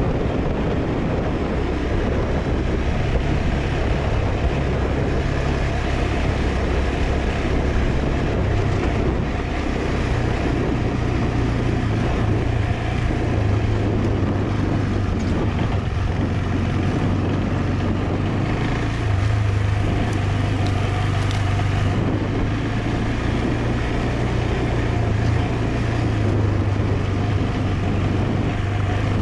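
KTM 390 Adventure's single-cylinder engine running steadily as the bike rides along a dirt track, its note shifting a little a couple of times with throttle and speed. Wind and tyre noise run underneath it.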